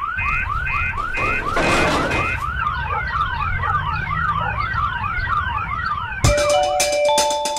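Electronic alarm siren in the cycling car-alarm style: rapid rising whoops alternating with a steady high beep, switching about two and a half seconds in to a fast run of falling sweeps. It stops about six seconds in as music with mallet-like notes begins.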